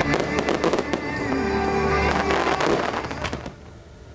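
Fireworks display: a rapid run of bursts and crackling, with music over it, fading away about three and a half seconds in.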